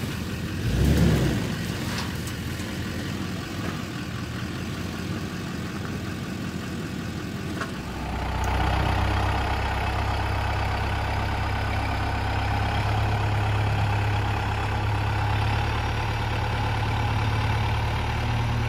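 A dump truck's engine runs while its tipped bed unloads mulch, with a short low thump about a second in. About eight seconds in it gives way to a Kubota tractor's diesel engine running steadily and louder as its front loader pushes the mulch.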